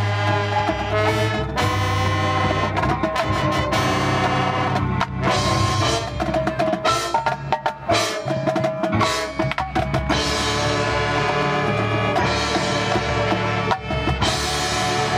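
High school marching band playing its field show music, with drums and percussion prominent. Sustained pitched parts run throughout, with sharp drum strikes midway and a fuller passage in the last third.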